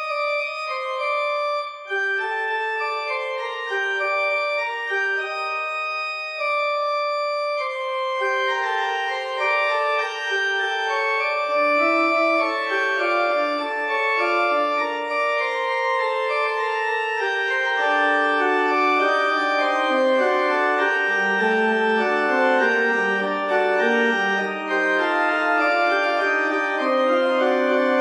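Pipe organ playing slow held chords, at first a few high notes, then growing fuller as more and lower notes join from about a third of the way in.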